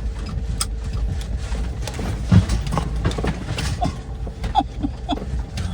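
4x4 Mercedes Sprinter camper van driving over a bumpy dirt logging road in four-wheel drive: a steady low rumble with irregular knocks and rattles as it bounces, the hardest knock about two and a half seconds in.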